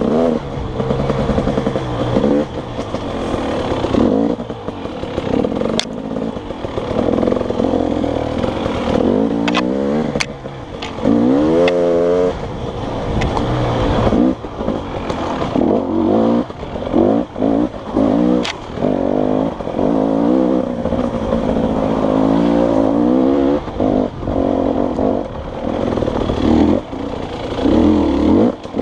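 Dirt bike engine revving up and down as the throttle is opened and closed again and again, with brief dips and a few sharp knocks.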